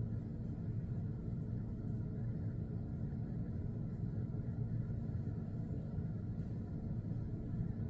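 A steady low rumble with a faint constant hum.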